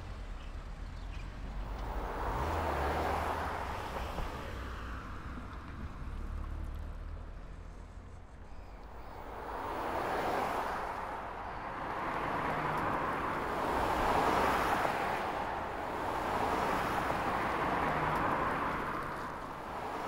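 Street traffic: several cars pass one after another. Each rises and fades over a few seconds, over a low rumble.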